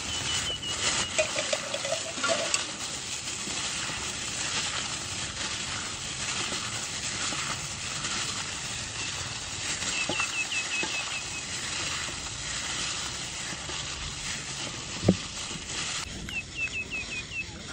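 Plastic bag crinkling and rustling as a bagged hand mixes raw beef with seasoning in a stainless steel bowl; it stops abruptly near the end. A single sharp knock about fifteen seconds in.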